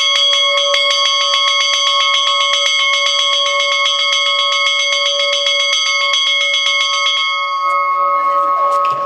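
A racecourse bell rung rapidly and continuously, about seven or eight strikes a second, for about seven seconds, then left ringing and fading near the end. At a trotting track this bell signals the last lap of the race.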